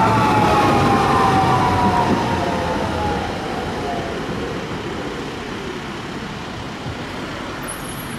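A tram's traction motors whining as it slows, several tones together falling steadily in pitch and dying out about four seconds in, over the rumble of the running gear; the whole sound grows quieter as the tram moves away or comes to a halt.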